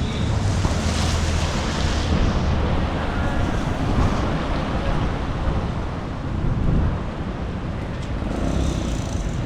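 Storm wind rushing and buffeting the microphone in uneven gusts, with road traffic going by.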